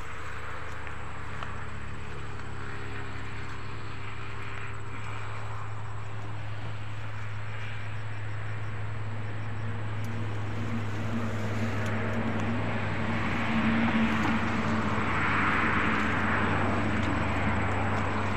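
A steady low motor-like drone, with grass rustling and swishing as a bamboo fish trap is worked free of tall wet grass and hauled upright; the rustling grows louder in the second half.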